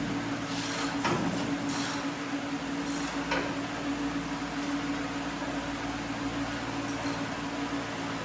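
Steady electric hum of shop equipment, with a few light metal clinks and knocks in the first few seconds as suspension hardware and tools are handled.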